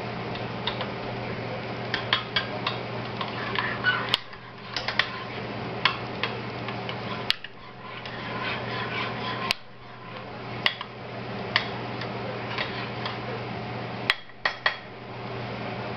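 A spoon clinking and scraping against a crock pot while stirring sausages in thick grape jelly and barbecue sauce, with irregular knocks every second or so and a few short pauses.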